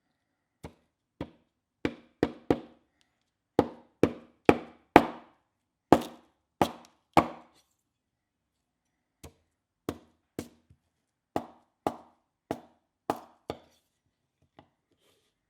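Knife chopping food on a cutting board: about twenty sharp, separate strokes in irregular runs, with a pause of a couple of seconds midway.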